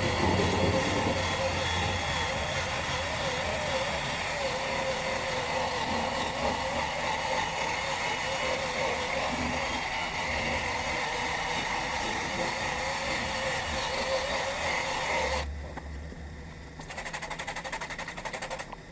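Workpro 12-volt cordless 3-inch polisher/sander running on a plastic headlight lens: a steady motor whine whose pitch wavers slightly as the pad is worked. It stops about 15 seconds in, and a short rapid buzz follows near the end.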